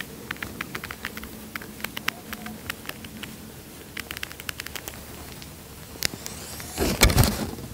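Scattered crunching and ticking of footsteps in dry grass and leaves as a whitetail buck walks in. A single sharp click comes about six seconds in, then a short loud thump.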